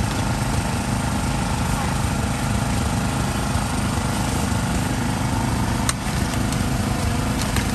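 Steady engine drone with indistinct voices underneath, and a single sharp click about six seconds in.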